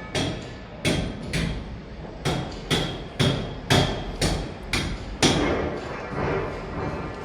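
Hammering on a construction site: about ten sharp hammer blows, roughly two a second, each with a short ringing tone, stopping about five seconds in.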